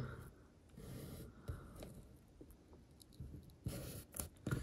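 Faint rubbing and a few soft taps as fingers press and smooth Tamiya masking tape onto a plastic model ship hull, with a small cluster of handling clicks near the end.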